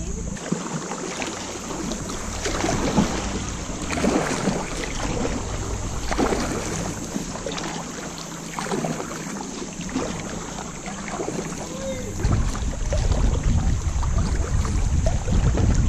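Kayak paddle strokes splashing and dripping in river water, one stroke every second or so. A low wind rumble on the microphone sets in near the end.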